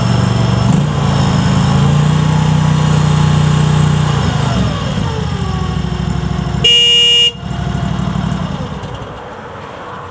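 RODA RD380C skid steer loader's engine running, then settling lower and quieter over the last few seconds. About two-thirds of the way in, the machine's horn gives one short beep of about half a second, the loudest sound.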